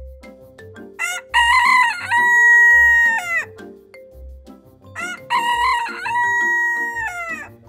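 A rooster crowing twice, each crow a long call that rises, holds a steady note and drops away at the end, over background music with a steady beat.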